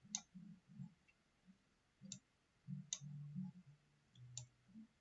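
Computer mouse clicking, four faint single clicks spaced unevenly, with faint low sounds in between.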